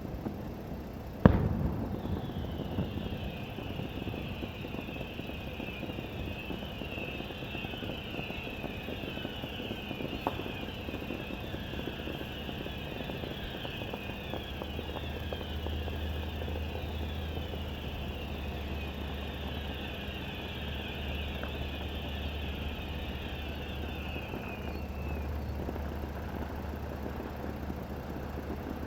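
Fireworks: one loud bang about a second in, then a long run of many overlapping falling whistles that stops a few seconds before the end. A low steady hum comes in about halfway through.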